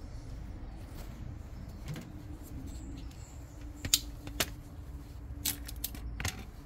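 A few sharp, separate clicks and light rattles, the loudest about four seconds in, over a low steady rumble.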